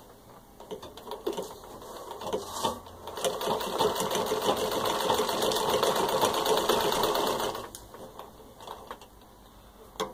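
1918 Singer 15-30 treadle sewing machine stitching through six layers of denim: a rapid, even clatter of the needle mechanism builds up about three seconds in, runs for about four and a half seconds, then stops, leaving a few quieter clicks.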